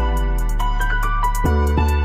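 Background music: held bass notes and chords over a steady ticking beat.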